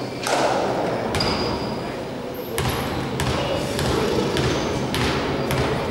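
A basketball bouncing a few times on a wooden gym floor, each bounce echoing in a large hall, over a murmur of players' and spectators' voices, with a short high squeak about a second in.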